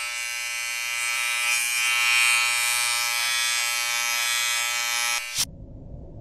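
A steady electric buzz, dense with high overtones, that stops abruptly about five seconds in. It gives way to a low rumble of room noise.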